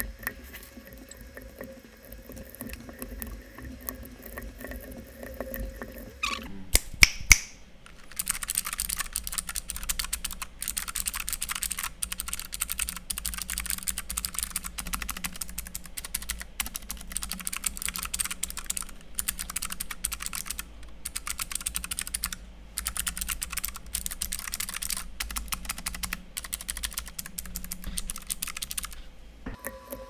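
Typing on a Keychron K3 low-profile keyboard fitted with Keychron Optical Blue clicky switches: fast, sharp key clicks in runs with short pauses. For the first six seconds there are only quieter clicks of keys being pressed and fitted, then a few loud snaps before the typing starts.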